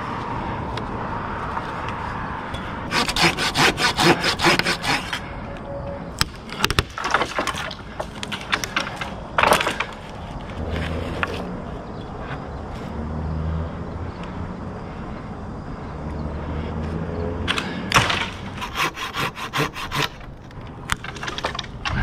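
Dry, dead maple wood rasping and cracking as limbs are worked in the tree: a run of quick, sharp strokes about three seconds in and another near the end, with scattered single cracks between.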